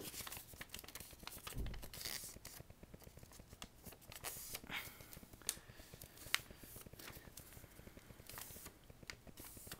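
A sheet of paper being folded and creased by hand: intermittent rustling and crinkling, with a few sharp ticks as the folds are pressed flat.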